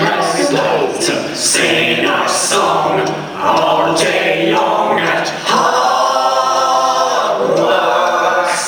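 A small group of voices singing a cappella in layered parts, with a sharp high accent about twice a second and long held chords in the second half.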